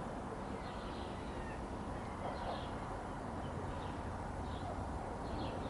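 Birds chirping: short, faint calls about once a second, over a steady background noise.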